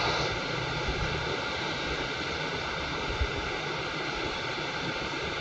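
Steady hiss of background noise, even and unbroken throughout.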